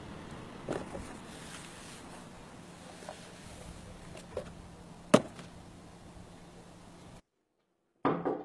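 Outdoor background noise with a few soft knocks and one sharp, loud knock about five seconds in. The sound cuts out near the end, and a new clip's sound begins just before the close.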